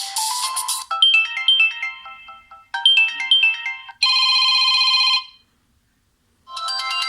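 Samsung Galaxy S2 ringtones played one after another. The end of one tone gives way to a short tune of bright, plinking notes played twice, then a buzzing electronic ring of about a second. After a brief silence the next ringtone starts near the end.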